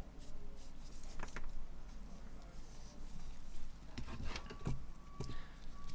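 Light clicks, taps and rubbing from hands handling a smartphone on a bench, over a low steady hum. A faint steady high tone comes in a little past the middle.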